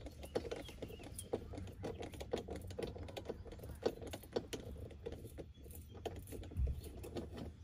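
Hand screwdriver turning a Torx trim screw out of plastic interior trim: a run of light, irregular clicks and ticks, with a dull low bump near the end.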